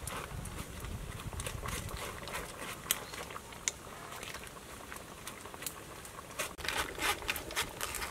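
A spoon clicking and tapping against a metal strainer as tamarind is pressed through it over a simmering pot, with a low steady rumble underneath; the taps come thicker near the end.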